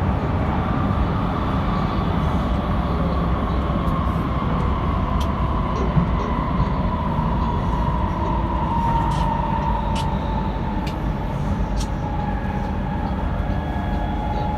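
Copenhagen driverless metro train running with a steady rumble, its electric motor whine slowly falling in pitch as the train slows, with a few faint ticks.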